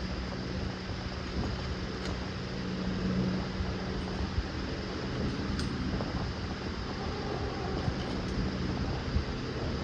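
A steady mechanical hum with one constant low tone and a few light clicks scattered through it.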